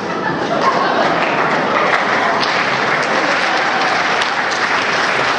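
An audience applauding steadily in a large hall, with cheering in the mix.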